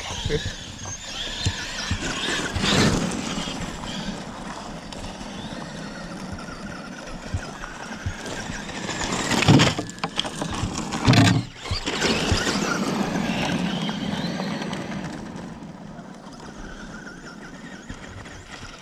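Electric radio-controlled trucks (a Traxxas Maxx and a Traxxas Slash) driving hard, their motors whining and rising and falling in pitch as they speed up and slow down, over tyre noise on grass and gravel. There are two louder surges about halfway through.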